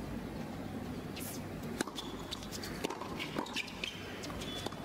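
Tennis doubles rally heard through a TV speaker: several sharp pops of racquets striking the ball, the loudest about two seconds in.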